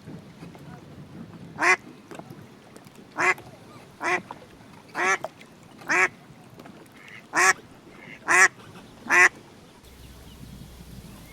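Duck quacking: eight short single quacks spaced about a second apart.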